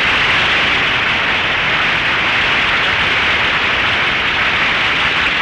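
Studio audience applauding, a loud, even clapping that tails off just after the guest's interview ends, heard through the narrow sound of an old radio recording.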